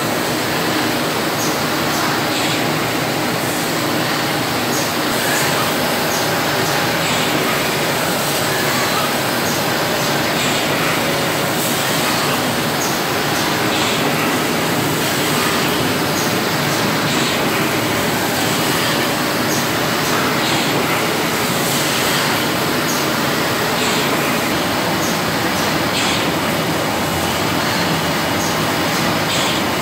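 SPS Technoscreen screen printing press and its sheet delivery conveyor running: steady machine noise, with light clicks scattered through.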